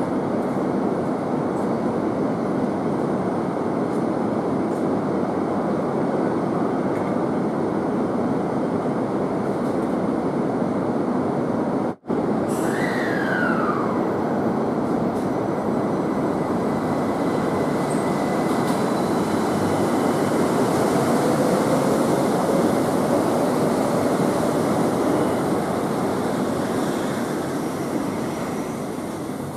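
A Tama Toshi Monorail straddle-beam train running on its concrete guideway, giving a steady running noise. After a cut about twelve seconds in, a short tone falls in pitch. In the second half a faint whine rises as the train draws past.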